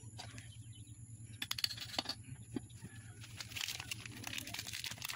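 Scattered light clicks and knocks of hand tools and metal engine parts being picked up and set down, over a faint steady low hum.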